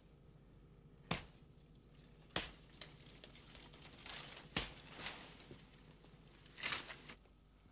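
Three sharp machete chops into jungle vegetation, with rustling and tearing of cut brush in between and a longer crashing rustle near the end.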